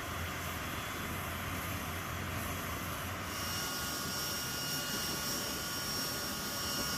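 Turbofan engines of a large four-engine military jet transport running steadily, a constant rushing noise; about three seconds in a high turbine whine of several steady tones joins it.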